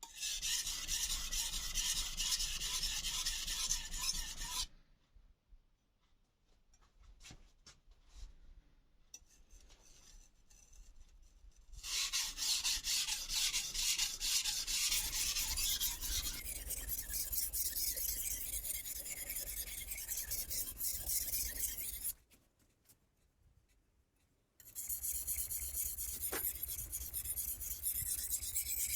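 Kai Shun chef's knife blade being stroked back and forth on a Solicut combination water stone, a steady hissing scrape of steel on wet abrasive. There are three spells of sharpening, with pauses of several seconds and a few faint ticks between them.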